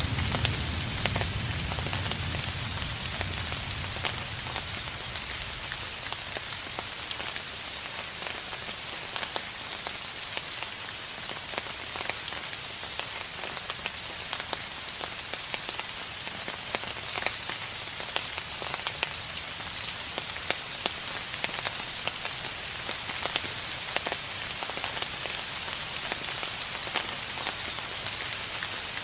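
Steady rain falling on a surface, a dense hiss full of small drop patters. A low, distant thunder rumble trails off during the first few seconds.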